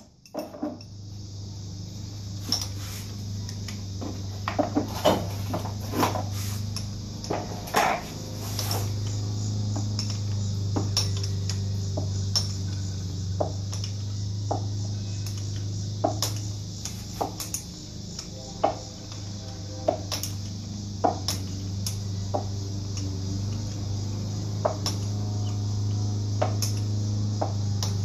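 Hand tools clinking and clicking against the engine's metal case as a wrench works the 13 mm case bolts, in irregular sharp strikes over a steady low hum.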